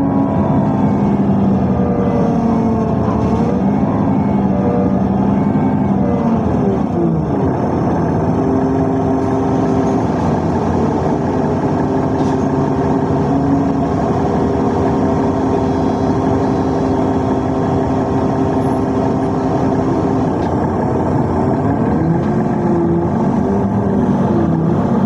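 Riyadh Metro train running, heard on board: a steady loud rumble with an electric motor whine that glides in pitch for the first several seconds, holds steady through the middle, and shifts again near the end.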